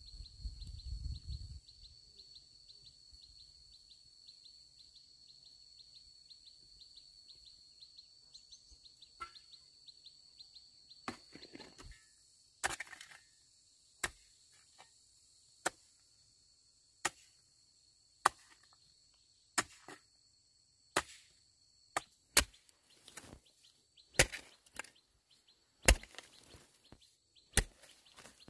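Repeated sharp chopping blows, as of a blade striking wood, starting about halfway through at roughly one every second and a half and coming faster near the end. A steady high-pitched whine runs through the first half.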